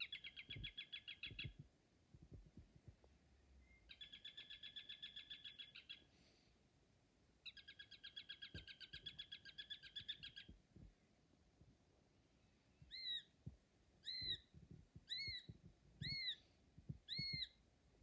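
Eurasian sparrowhawk calling: three rapid chattering runs of short notes, about eight a second, each lasting one to three seconds. Then five separate single calls that rise and fall, about one a second.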